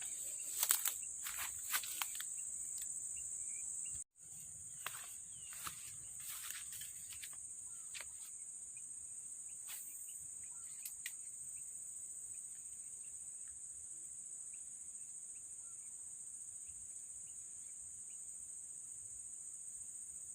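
Steady high-pitched insect chorus, with scattered clicks and knocks in the first half. The sound cuts out briefly about four seconds in.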